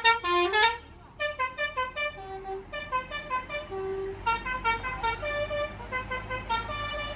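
Bus 'telolet' musical air horn playing a quick tune of short stepped notes, loud at first and breaking off about a second in, then the melody carrying on more quietly. A low engine rumble sits underneath from about four seconds in.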